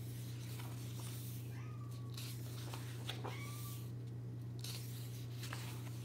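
Pages of a paperback activity book being handled and turned, with soft paper rustles over a steady low hum. A few short, faint squeaky glides are heard, about two and three seconds in.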